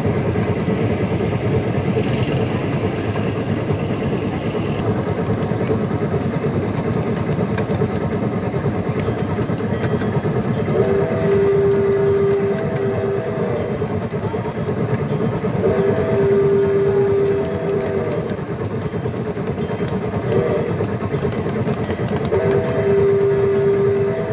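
Battery-powered ride-on scale steam locomotive running along its track with a steady rumble of wheels on rail. Its whistle sounds four times: long, long, short, long, the grade-crossing signal.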